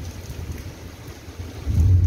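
Thunderstorm: rain hissing under a low rumble that swells loud near the end.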